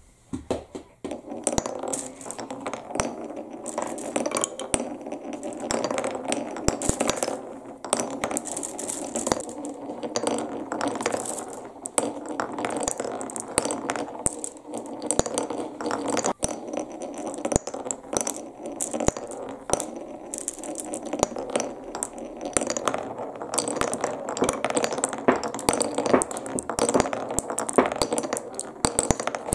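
Glass marbles rolling through a wooden Cuboro marble run: a continuous rolling rumble through the grooves and tunnels of the beech blocks, with many sharp clicks and clacks as the marbles drop, strike the wood and knock against each other. It starts about half a second in.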